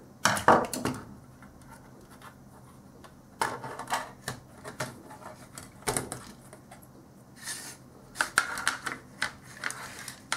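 Plastic case of a handheld LC meter being pried apart by hand: irregular clicks, creaks and scrapes of the snap-fit plastic halves separating, in several short bursts, with the parts knocking on a wooden desk near the end as they are set down.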